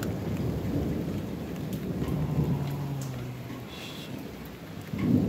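Thunder rumbling over steady rain, loudest in the first couple of seconds and slowly dying away.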